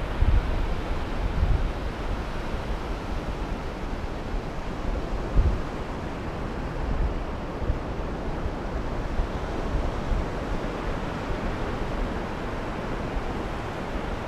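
Sea surf washing steadily on the shore, with wind buffeting the microphone in low rumbling gusts, strongest near the start and about five seconds in.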